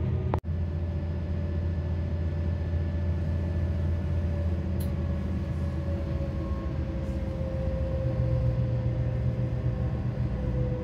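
Boat engine running steadily with a low hum, a faint higher tone sliding slowly down in pitch. The sound cuts out for an instant about half a second in.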